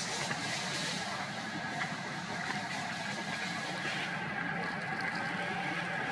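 Steady background noise with a low engine-like hum running evenly underneath.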